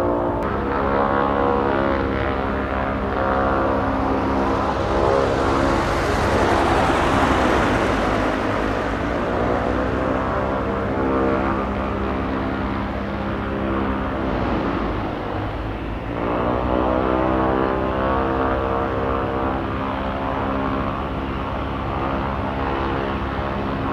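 Boeing 737-800's CFM56 jet engines on arrival: a steady whine with a stack of tones, swelling loudest and hissiest about seven seconds in as the jet passes, the tones then falling in pitch. About sixteen seconds in, a new set of tones sets in and the engine sound picks up again.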